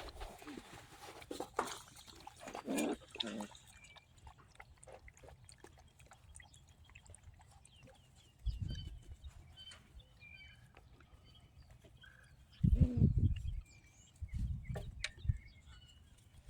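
Seven-week-old puppies squeaking and grunting in short, scattered calls, with a few low thumps, the loudest about two-thirds of the way through.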